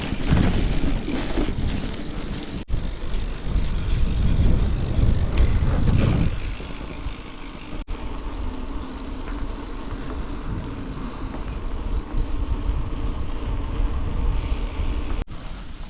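Riding a bicycle on a dirt road, with wind buffeting the action-camera microphone over the hum of the tyres. The wind rumble is strongest and gustiest in the first six seconds, then settles to a steadier rush.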